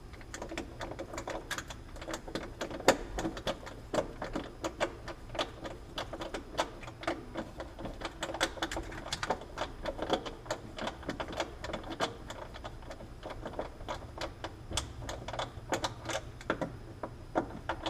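Rapid, irregular small clicks and taps of a screwdriver and metal cabinet catch hardware being handled while a cabinet door catch is changed out.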